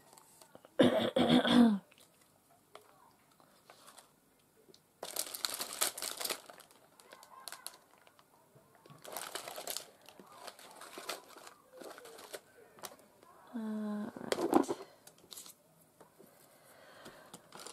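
Plastic packets of craft embellishments rustling and crinkling in several bursts as a hand rummages through a plastic storage box. About a second in, a brief loud voice-like shout is the loudest sound, and a shorter falling call follows later.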